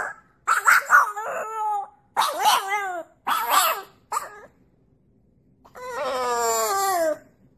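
A dog howling and whining: a run of about four short calls, then after a pause one long howl that falls in pitch.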